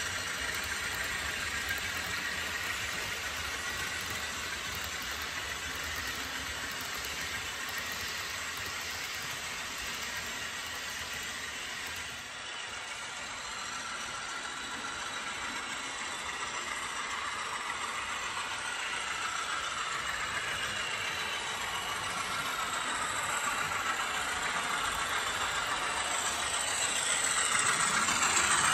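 HO-scale model freight train rolling on track: a steady rattle of small metal wheels on the rails, swelling over the last few seconds as the MLW M420W model locomotive approaches.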